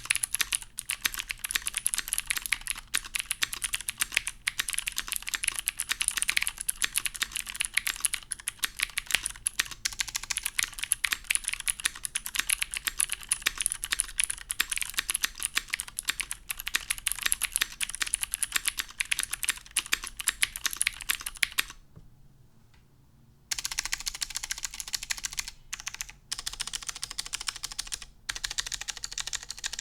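Fast typing on an OTD 356CL mechanical keyboard with oil-lubed Cherry MX Blue clicky switches, a top-mounted aluminum plate, no dampening foam and GMK keycaps: a dense stream of sharp clicks. About two-thirds of the way through it stops for a second and a half, then resumes in shorter runs.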